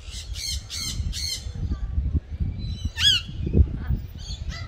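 Parrots squawking: four quick harsh calls in a row, then a single louder squawk about three seconds in and a couple of weaker calls near the end.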